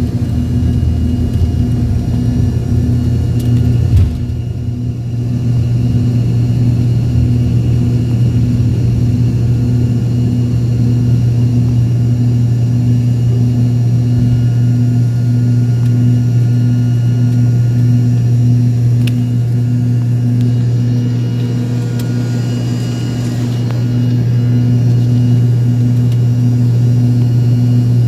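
Passenger jet's engines heard from inside the cabin at takeoff power, a loud, steady drone. A rough runway rumble runs under it until a thump about four seconds in, as the wheels leave the ground, after which the drone carries on smoother through the climb.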